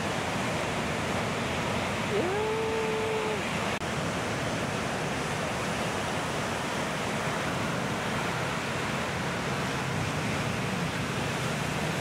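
Ocean surf breaking steadily on the shore, an even rushing wash. About two seconds in, a short call rises and holds for just over a second above it.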